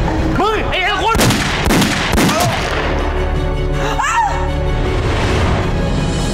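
Tense drama soundtrack music with short cries near the start, a quick run of sharp bangs a second or two in, and a woman's high scream about four seconds in.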